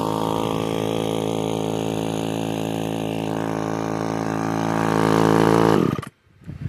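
Old Craftsman two-stroke chainsaw engine running steadily, a little louder about five seconds in, then stopping abruptly.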